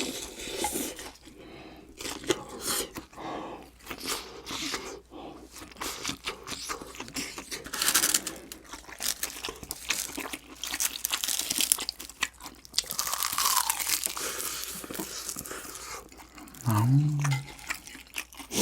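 Close-up crunching and chewing of a fried, breaded cheese pork cutlet (cheese donkatsu), with irregular crisp crackles of the crust as it is bitten and chewed. A short hum of the voice comes near the end.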